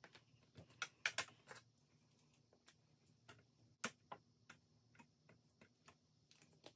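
Faint, irregular light clicks and taps as small craft items, such as an ink pad, are handled and set down on a cutting mat.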